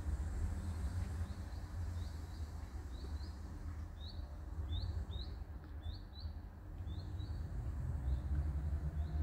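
A small bird chirping: a quick series of short, high chirps, two or three a second, over a steady low rumble.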